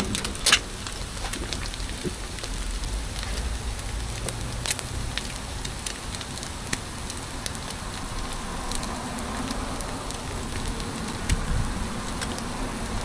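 Food sizzling and crackling as it cooks: a steady hiss with many small pops.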